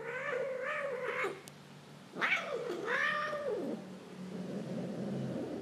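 A cat yowling: two long, wavering meows, the first at the start and the second about two seconds in.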